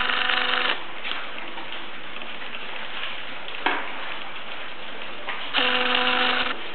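A litter of five-week-old puppies eating dry food from a bowl: steady crunching, lapping and jostling around the bowl. Twice, at the start and again near the end, a short steady tone with a couple of overtones sounds for just under a second, and there is a sharp knock about halfway.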